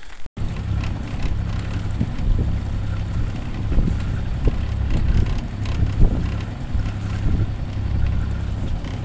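Small outboard motor running steadily, pushing a sailing yacht along, with wind buffeting the microphone.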